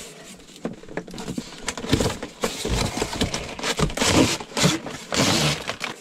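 Cardboard packaging being handled: a toy boat's box opened and its cardboard insert slid out, with scraping, rubbing and small knocks, and louder rustling slides about four seconds in and again about a second later.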